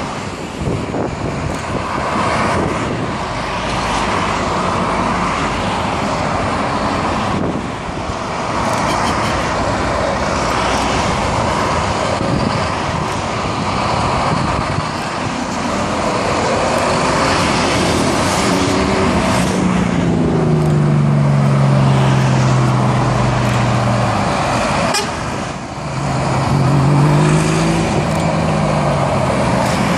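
Motorway traffic noise from a convoy of heavy trucks and cars passing below, a steady rush of engines and tyres. A truck's engine note drops as it passes, about two-thirds of the way in and again near the end.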